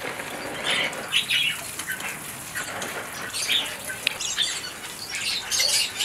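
Small aviary birds chirping and calling in many quick, high-pitched bursts, over the faint hiss of a garden hose spray nozzle watering plants.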